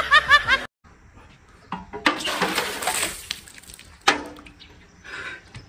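Clinking and clatter of a metal ladle in a metal bucket and against a wok as water is ladled out and poured, with a sharp knock about four seconds in.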